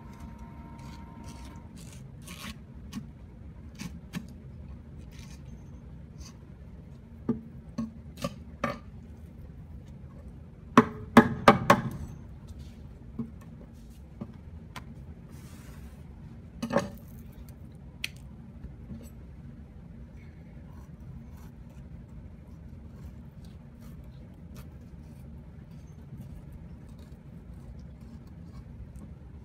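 Kitchen knife scraping and tapping on a wooden cutting board while a pike conger (hamo) is filleted, in scattered knocks with a burst of sharp knocks about eleven seconds in and another single one near seventeen seconds. A steady low hum runs underneath.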